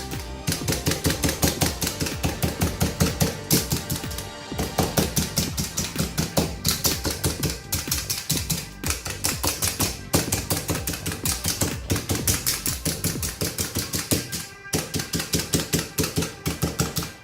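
Hand-plunger meat tenderizer punched rapidly and repeatedly into thin-sliced chicken breast on a board, about five strikes a second with a few short breaks, tenderizing it so the marinade soaks in. Background music plays underneath.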